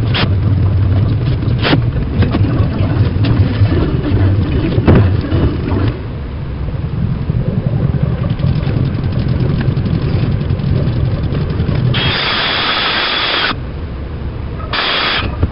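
A machine runs with a steady low hum while scattered sharp clicks sound. Near the end come two bursts of hissing, the first about a second and a half long and the second about half a second.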